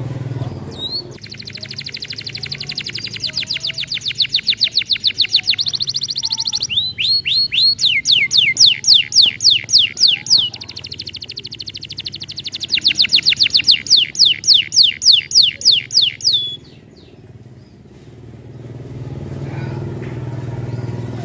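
Domestic canary song: long, fast trills of rapidly repeated high notes, one run made of quick downward-sweeping notes, stopping abruptly about sixteen seconds in.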